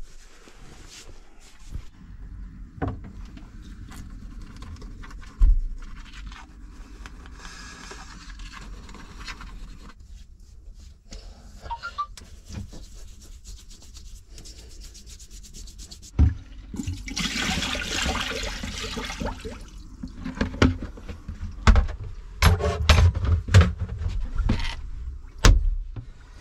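Fabric rustling and household items handled during dressing and washing up, with scattered knocks and thumps. About two-thirds of the way through, water rushes for two or three seconds, and near the end there is a run of sharp clicks and bumps.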